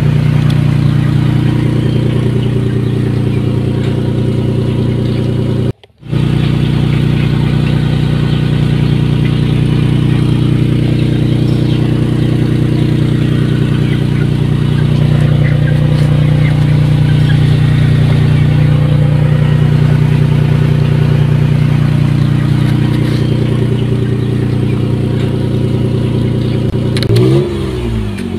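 Steady motor-vehicle engine running at a constant pitch, cutting out completely for a split second about six seconds in, then revving up and down near the end.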